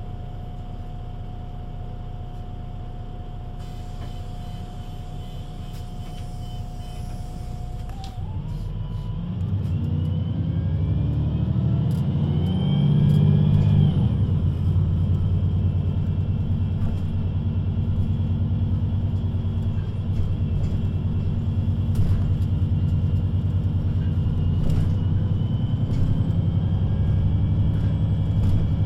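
VDL Citea LLE 120 city bus pulling in: its diesel engine grows louder from about eight seconds in, with a rising whine, and is loudest around thirteen seconds in. It then idles steadily while standing, with a few light clicks over the idle.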